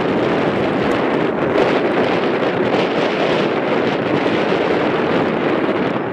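A USAF F-15 fighter jet's twin engines, a loud, steady jet noise as it flies overhead on approach to land, with wind on the microphone.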